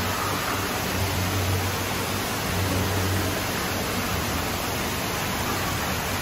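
Steady rushing, water-like noise with a low hum that swells and fades: the running water and machinery of an aquarium hall.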